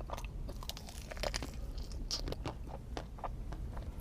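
A person chewing and biting into a strawberry-shaped mousse pastry close to the microphone: small crunches and wet mouth clicks, scattered irregularly.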